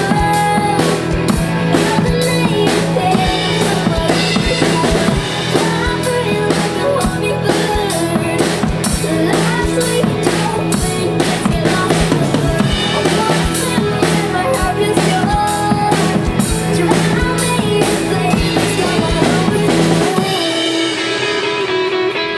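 Live pop-rock band playing an instrumental passage: drum kit with kick, snare and rimshots, electric guitar and keyboard. The drums and low end stop about two seconds before the end, leaving a ringing chord.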